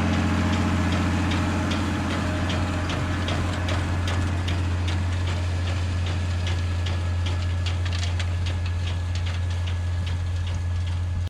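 Massey Ferguson 3505 tractor engine running steadily, with a regular clicking of about three a second over the engine hum.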